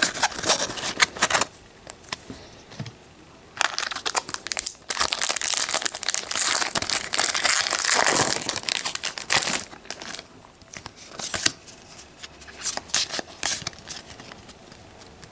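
Foil Pokémon trading card booster pack crinkling and tearing as it is opened by hand. A few clicks of cards being handled come first; the crinkling starts about three and a half seconds in, is loudest for several seconds, then comes in short bits near the end.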